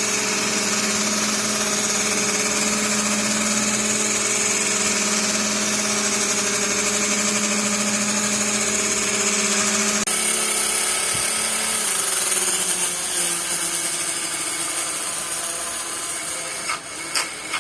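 Small DC motors and propellers of a homemade helicopter running, a steady buzzing hum with a high whine. About ten seconds in the sound changes abruptly and a lower tone winds down over the next few seconds; a few sharp clicks near the end.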